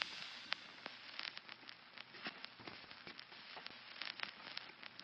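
Faint, irregular crackling: scattered small clicks over a low hiss.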